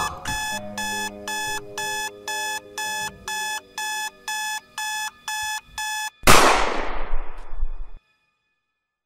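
Electronic alarm clock beeping about twice a second. Near the end it is cut off by a loud crash that fades over about two seconds and then stops abruptly.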